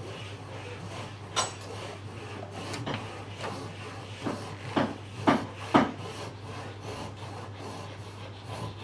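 Traditional Chinese frame saw cutting into wood held in a vise, in short, uneven back-and-forth strokes; the loudest strokes come a few in quick succession about halfway through.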